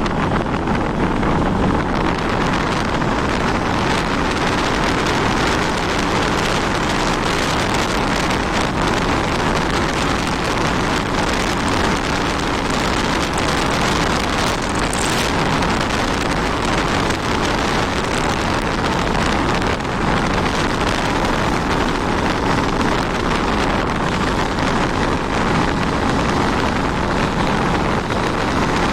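Honda 160 motorcycle being ridden, its engine running steadily under heavy wind noise on the microphone.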